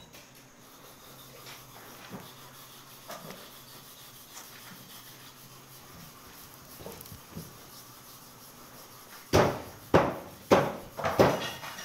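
Mostly quiet, with a few faint clicks, for about nine seconds; then a run of loud, short thumps and rubbing, about two a second, as a large cut of beef hindquarter is grabbed and pulled around on the butcher's table.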